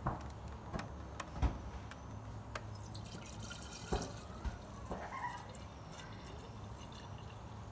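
Filtered moonshine poured from a plastic pitcher water filter into a glass mason jar, a thin stream trickling and splashing into the jar. A few light knocks sound in the first half, the loudest about a second and a half in.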